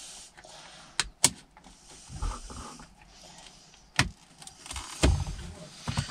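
Plastic clip tabs of a 2002 Volvo V70's gear-selector trim surround snapping loose as the panel is pried up: three sharp snaps, two close together about a second in and one about four seconds in, with rustling and knocking of the plastic panel being worked between them.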